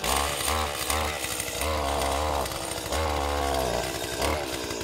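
Small petrol engine of a pole-mounted mechanical oil-palm harvester (Malaysian knife) running. It is revved in about six short throttle bursts, each rising and falling in pitch.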